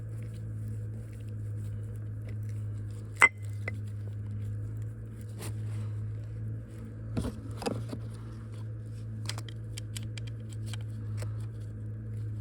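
Light metal clinks and taps of an Allen wrench and bolts against the steel parts of a feller buncher rotator, with one sharp ringing clink about three seconds in and a few knocks near the middle. A steady low hum runs underneath.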